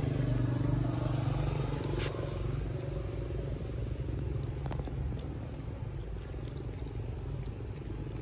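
A motor engine running steadily nearby, a low even hum that eases off about five seconds in, with a few faint clicks over it.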